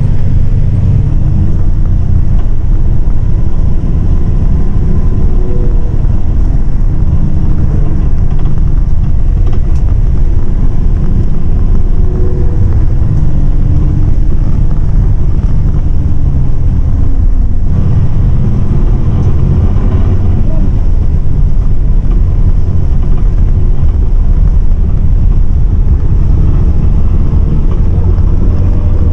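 MAN 18.350 bus's diesel engine and road noise heard from inside the cabin while the bus drives, a steady low drone with the engine's pitch drifting up and down a little.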